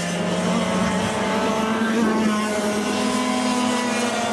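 Several racing go-kart engines at high revs, their pitches rising and falling against one another as the karts drive round the track.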